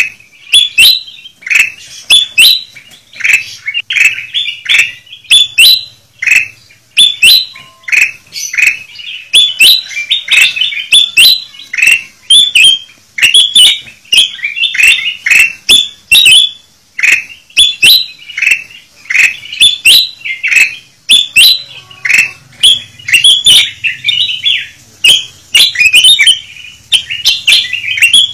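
Kutilang emas (ruby-throated bulbuls) calling noisily and without a break: a dense run of short, sharp call notes, about two loud bursts a second. It is a lure call recording, played to draw wild birds of the same kind down.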